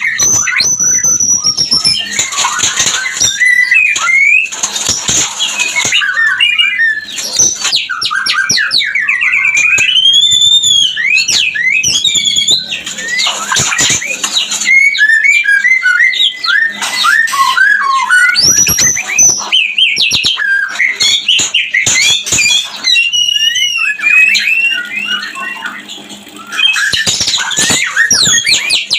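White-rumped shama (murai batu) singing in mating condition: a fast, unbroken run of varied whistles, rising and falling glides, rapid trills and harsh chattering notes. This is the breeding call used as a lure to bring captive shamas into readiness to mate.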